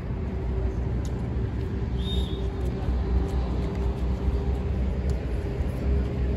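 Steady low outdoor rumble, like traffic noise, with a few faint knocks and a brief high chirp about two seconds in.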